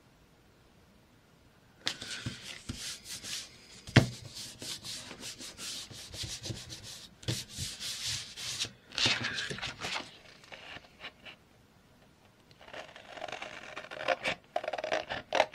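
Hands rubbing and smoothing a sheet of paper down onto orange cardstock, a dry rubbing and rustling that starts about two seconds in, with a single sharp knock about four seconds in. The paper is lifted and handled again near the end, rustling and crackling.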